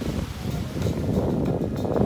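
Wind buffeting the microphone: a rough, uneven low rumble that grows a little louder in the second half.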